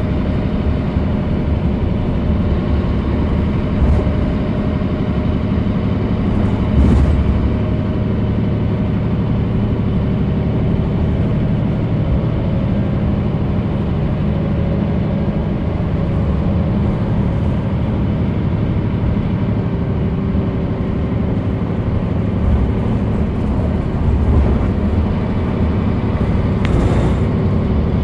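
A 2005 Mitsubishi Fuso Aerostar PJ-MP35JM city bus running along the road, heard from inside the cabin: a steady engine drone with road noise and a low thump about seven seconds in.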